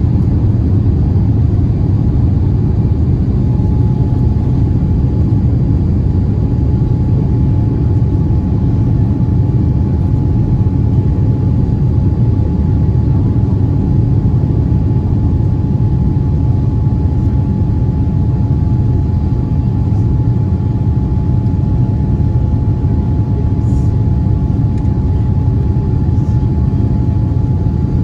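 Boeing 787-9 cabin noise: a steady, loud low rumble of the engines and airflow heard from inside the economy cabin. A faint steady whine joins a few seconds in and holds.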